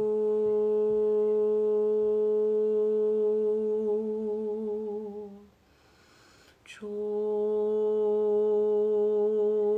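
A woman's voice holding a long, steady "oo" note, the qigong healing sound for the kidneys. The note wavers and stops about halfway through, a quick sharp breath is drawn in, and the same note starts again.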